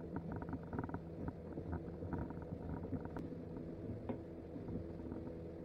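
Quiet handling of a steel F-clamp being tightened onto glued wooden strips over a bending form: a few sharp clicks and light knocks over a low steady hum.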